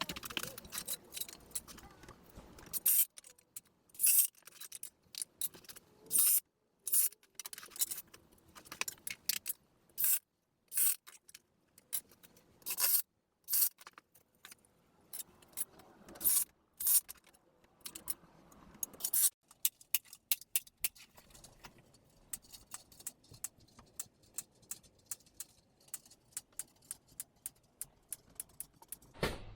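Hand work on a wooden pen frame and chicken wire: a long run of irregular sharp clicks, knocks, scrapes and wire rattles, then a quicker, more even string of light ticks in the last third.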